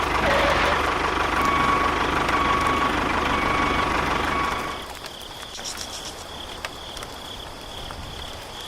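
A small tractor engine runs steadily, then stops about five seconds in. A faint, high, pulsing insect trill is left behind it.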